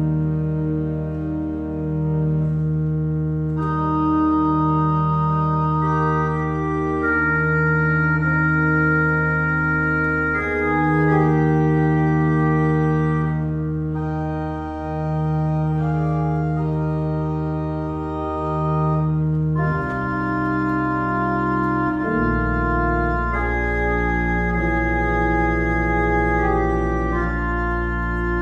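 Church organ playing slow, sustained chords over a held low bass note; the chords and the bass change about two-thirds of the way through.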